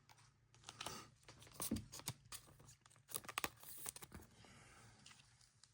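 Faint crinkling and rustling of a plastic penny sleeve being handled, with scattered small clicks and scrapes.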